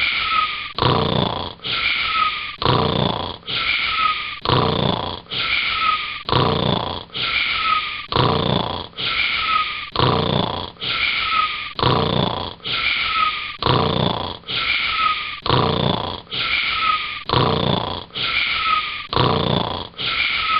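Cartoon snoring looped in an even, unchanging rhythm, one short snore about every second, each carrying a brief falling tone.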